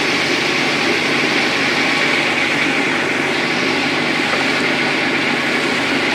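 Motor boat's engine running steadily, a constant loud drone with no change in speed.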